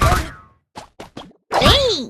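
A string of short cartoon-style sound effects separated by dead silence: one with gliding pitches at the start, three quick clicks about a second in, then a louder one whose pitch drops steeply near the end.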